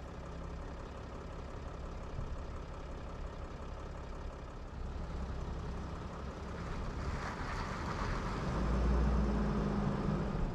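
A van's engine and road noise as it drives slowly and turns around, with a steady low rumble that grows louder about eight seconds in.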